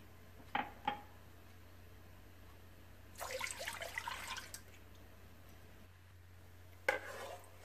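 Milk poured from a cup into a saucepan: a splashing pour lasting about a second and a half near the middle, with a couple of light clicks before it and a short knock near the end.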